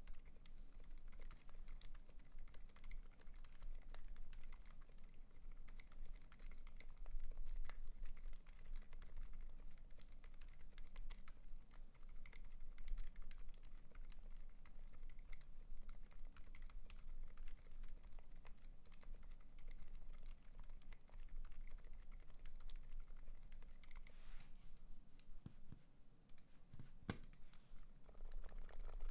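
Continuous fast typing on a custom 60% mechanical keyboard (Tofu60, aluminium plate, greased and padded stabilisers) with lubed Durock Dolphin silent switches: a dense stream of soft, muted keystrokes. Near the end the typing thins out briefly, broken by a few heavier key strikes.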